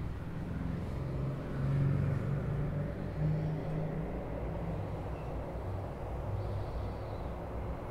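A low, steady rumble of background noise, swelling slightly about two seconds in and again shortly after.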